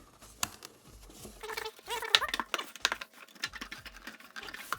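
Small clicks, taps and rustles of packaging and boxed accessories being handled, busiest about one and a half to three seconds in.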